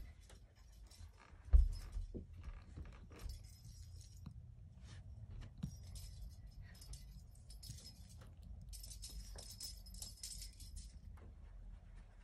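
Small bell inside a plastic lattice cat-toy ball jingling in repeated bursts as a kitten bats and bites it, with one low thump about a second and a half in.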